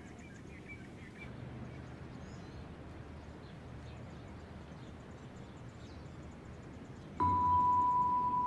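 Faint outdoor background noise with a few bird chirps in the first second or so. About seven seconds in, a steady high electronic tone starts suddenly, louder than the background, and holds without changing.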